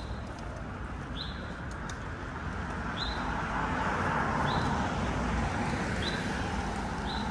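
Street traffic noise that swells as a vehicle passes in the middle, with a short high chirp repeating about every one and a half seconds.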